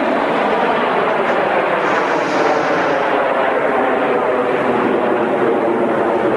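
Jet roar from a formation of PZL TS-11 Iskra jet trainers, each with a single turbojet, flying overhead. It is a steady, loud rushing roar, with a brief higher hiss about two seconds in.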